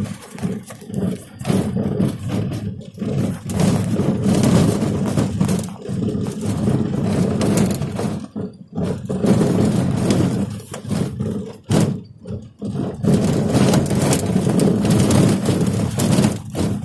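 Noise of a moving car heard from inside: a loud, uneven rumble of engine, road and wind that rises and falls, with a couple of brief dips.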